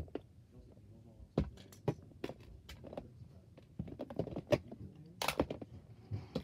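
Irregular clicks, taps and light knocks of small toys and objects being handled and rummaged through, with a brief louder rustle about five seconds in.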